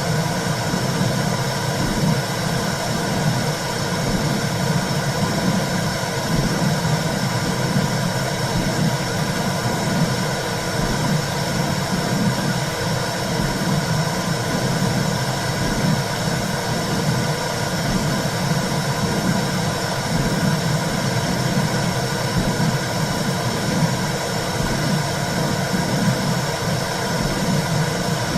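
Womb sound for soothing a baby: a steady, low, rumbling whoosh that flickers unevenly, with a faint constant hum above it.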